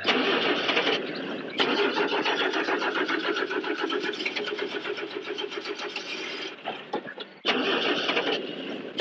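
A jeep's engine cranked on the starter in several tries, one of them about five seconds long, with the rapid churning pulse of the starter turning the engine over. It never catches: the engine will not start.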